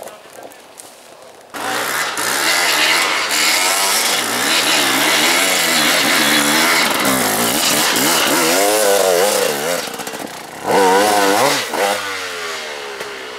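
Off-road dirt bike engine revving hard, its pitch swinging up and down over and over as the throttle is worked. It starts suddenly about a second and a half in, dips briefly, and comes back in a loud burst of revving near the end.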